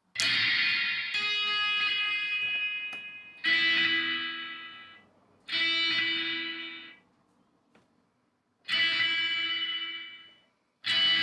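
Electric guitar played through a Korg A5 multi-effects processor: five chords strummed and left ringing, each fading or stopped after one to three seconds, the first held longest with a second chord about a second in.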